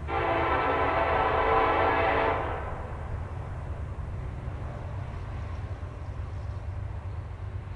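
Distant freight locomotive air horn sounding one long blast of about two and a half seconds and then cutting off, with a low steady rumble underneath.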